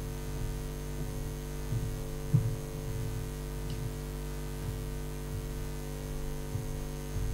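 Steady electrical mains hum, with a few soft low thumps; the loudest comes about two seconds in.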